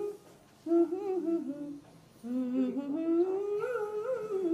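A woman humming a slow melody without accompaniment: two phrases of held and gliding notes, the second climbing and then falling back.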